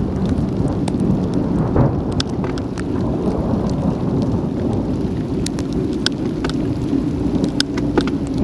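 Raindrops striking the action camera's housing in sharp separate ticks, more of them in the second half, over a steady low rumble of wind on the microphone and bicycle tyres rolling through water on a wet road.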